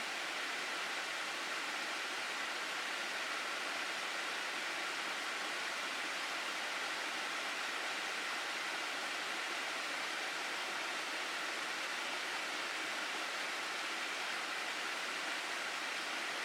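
Mountain gorge stream rushing steadily over rocks, an even, unbroken hiss of moving water.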